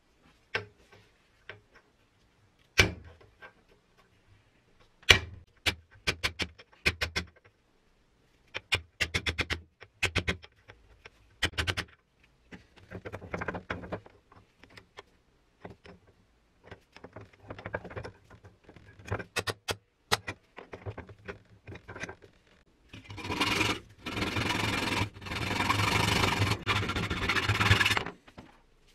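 Sharp clicks and knocks of a small wooden-handled metal part being set and clamped in a steel bench vise. About 23 seconds in, a hacksaw starts cutting in back-and-forth strokes for several seconds.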